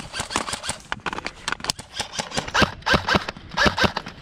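Footsteps crunching quickly and irregularly over dry leaves and twigs on a forest floor, with sharp snaps of breaking sticks, loudest in the second half.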